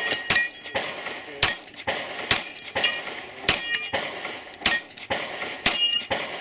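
Six gunshots at about one a second, each followed by the ringing clang of a steel target being hit.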